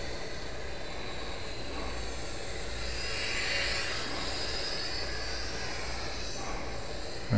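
Electric motor and propeller of a FlyZone Playmate micro RC airplane buzzing in flight over a steady hiss, swelling briefly about three seconds in.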